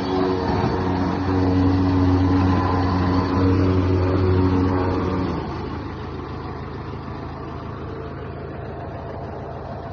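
Loaded pickup truck's engine running hard at steady revs for about five seconds, then easing off to a quieter steady run.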